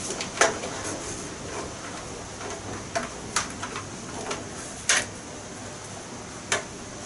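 Handling noise of string being wound and knotted around a wooden stick: light rustling with a handful of sharp clicks and taps at uneven intervals.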